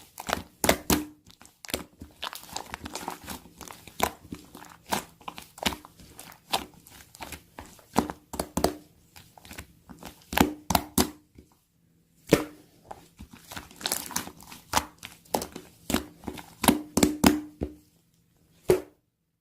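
Slime being squeezed, stretched and pressed by hand, making irregular sharp clicks and pops, sometimes in quick runs. The pops stop shortly before the end.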